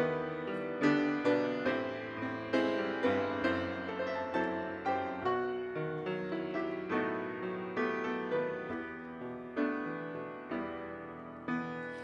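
Solo grand piano playing a slow introduction: struck notes and chords, about two or three a second, each ringing and fading.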